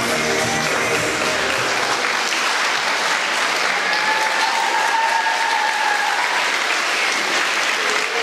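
Backing music ends about two seconds in, and a large audience applauds steadily.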